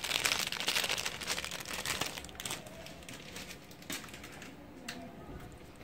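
Crinkly rustling, dense for about the first two seconds, then thinning to a few faint scattered clicks.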